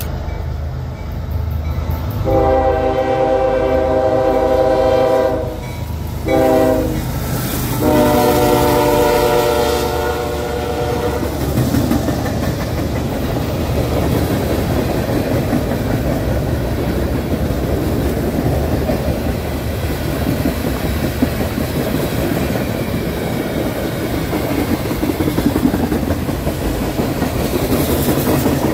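Freight train's diesel locomotive air horn sounding a long blast, a short one and another long one, the close of the grade-crossing warning. Then the loaded freight cars roll past close by, wheels clattering and rumbling on the rails.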